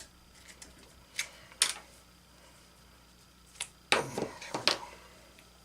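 Hard clicks and a short clatter of small metal engine parts and tools being handled during disassembly: two separate knocks, then a quick run of clicks about four seconds in.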